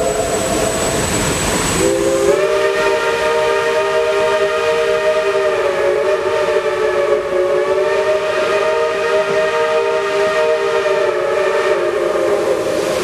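Steam locomotive chime whistles blowing over the rumble of passing rail cars. One whistle chord fades just after the start, and a second multi-tone chord starts about two seconds in and holds, sagging slightly in pitch near the end.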